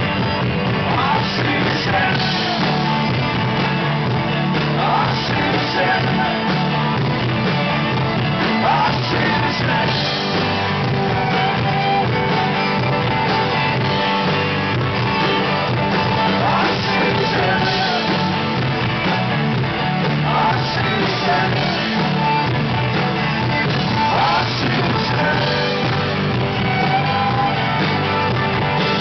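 A live rock band playing a song with guitars and singing, steady and loud without a break.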